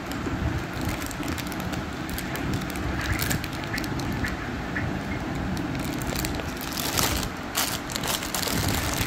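Thin clear plastic bag crinkling and crackling as it is handled and pulled open around stacked bangles, a dense run of small crackles that grows louder about seven seconds in.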